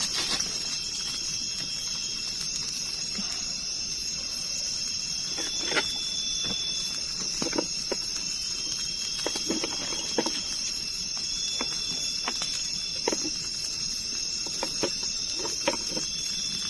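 Night insects chirring steadily in a high, continuous drone, with a second insect call in short bursts of about a second, repeated every few seconds. Scattered light clicks and knocks are heard now and then.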